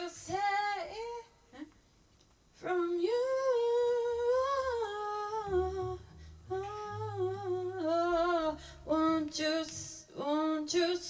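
A woman singing a slow melody without clear words, in long held phrases with a short break near the start. A few low bass notes sound beneath her voice about halfway through.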